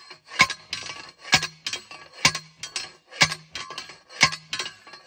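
Steel T-post being driven into the ground with a manual post driver: five sharp metal clanks about a second apart, each followed by a short ring.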